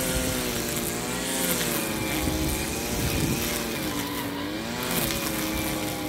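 Small engine of grass-cutting equipment running under load, its pitch rising and falling as it works through the grass.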